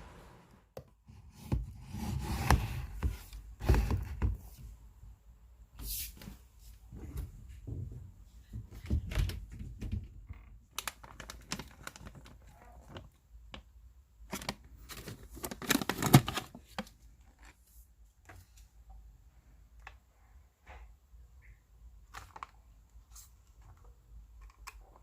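Irregular knocks, taps and rustling of objects being handled, with louder clusters about two seconds in, around four seconds, and about sixteen seconds in, thinning out toward the end.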